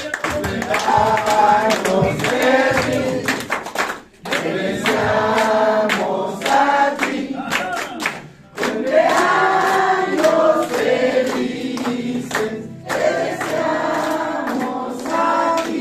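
A group of people singing a birthday song together in unison, in phrases with short breaks about four seconds and eight and a half seconds in.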